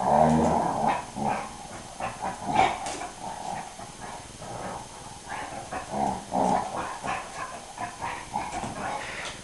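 Dog making play growls and grumbles in uneven bursts, loudest at the very start, while it wrestles with a cat: rough play, not a fight.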